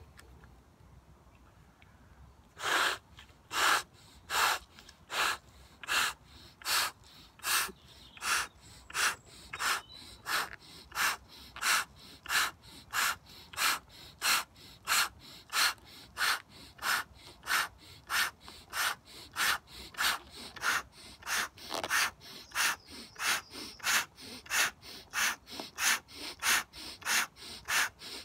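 A person inflating a Belbal 14 balloon by mouth: sharp, regular breaths, about one and a half a second, between puffs into the balloon, starting about two and a half seconds in.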